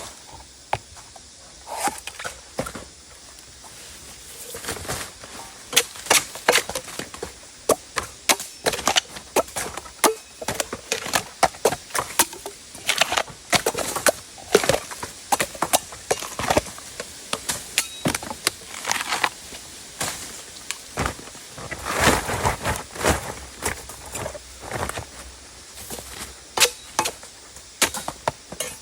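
A blade chopping bamboo shoots: repeated sharp cuts at an irregular pace, a few in the first seconds, then quicker strikes from about six seconds in.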